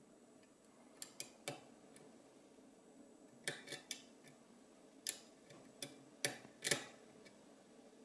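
Sharp metal clicks of a hook pick working the pin stacks of a six-pin euro cylinder lock held under tension, about ten clicks in irregular clusters as pins are lifted and set.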